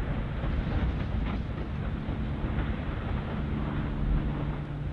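Low rumble of the Geldingadalir fissure eruption mixed with the drone of aircraft overhead. A steady engine hum comes in about two seconds in and grows stronger toward the end.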